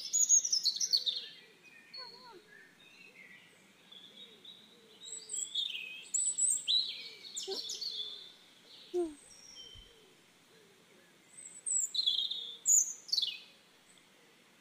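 Birds calling: bursts of high chirps and quick falling whistles, loudest at the start, again around the middle and once more near the end.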